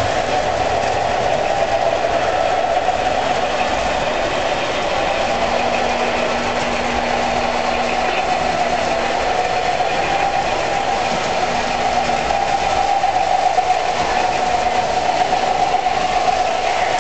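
Lionel O gauge model trains running on Super O three-rail track: a steady whir of the locomotive motors and wheels rolling on the rails. A low hum joins in for a few seconds about five seconds in.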